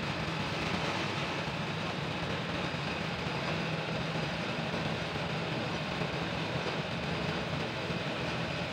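Compressed-air paint spray gun hissing steadily as it sprays paint onto a car body, over the steady hum of an air compressor running.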